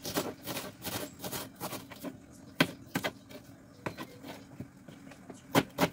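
Chef's knife chopping onion on a cutting board: quick, irregular taps of the blade striking the board, thinning out in the second half to a few separate knocks.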